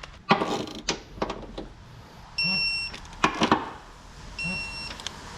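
An electronic beep, short and high-pitched, repeating about every two seconds. Between the beeps come sharp metallic clanks and rattles of tool work.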